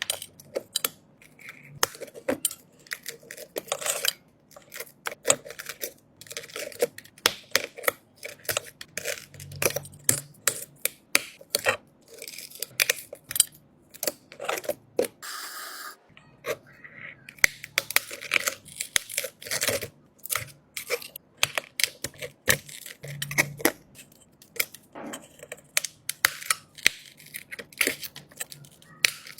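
Rapid, irregular clicks, taps and scrapes of small hand tools working on an iPhone 12 Pro Max that has a cracked back glass, with a brief hiss a little under halfway through.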